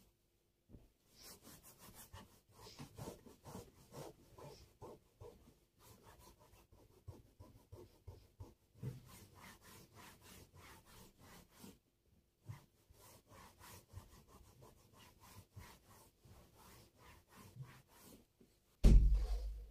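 Rhythmic back-and-forth scrubbing of a surface by hand, about three strokes a second, with two short pauses. A loud, low thump or bump near the end.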